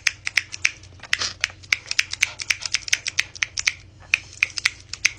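Small fidget toy being worked by hand, giving a quick, irregular run of sharp clicks, several a second.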